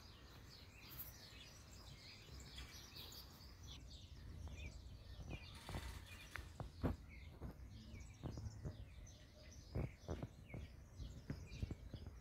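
Small birds chirping faintly and repeatedly in the background over a low outdoor rumble, with a few soft knocks and rustles in the second half.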